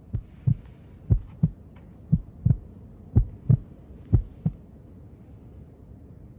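Heartbeat sound effect: five loud double thumps (lub-dub), about one a second, stopping about four and a half seconds in.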